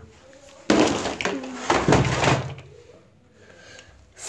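A phone being handled, with rubbing and knocking right on its microphone: two loud bursts, about a second in and again around the two-second mark.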